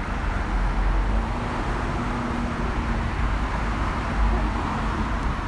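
City street traffic: a steady low rumble of vehicles running on the road, with a faint steady hum for a couple of seconds from about a second in.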